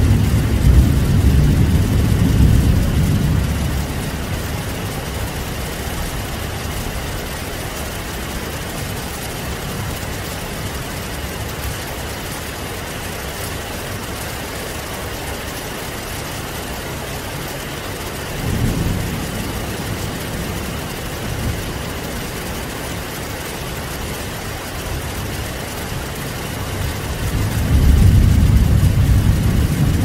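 Heavy rain falling steadily, with low rolls of thunder: one in the first few seconds, a short one a little past halfway, and another building near the end.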